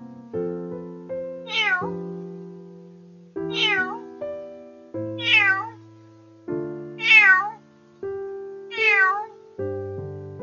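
A cat meowing five times, about every one and a half to two seconds, each call falling in pitch, over piano background music.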